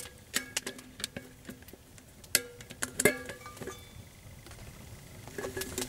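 Stainless steel tiffin pot parts knocking and clinking against each other as they are handled and taken apart, a scatter of sharp clicks, several ringing briefly. The loudest knocks come about two and a half and three seconds in.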